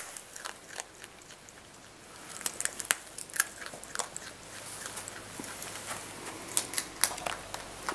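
A woodchuck (groundhog) chewing and crunching food, with irregular sharp crunches and clicks.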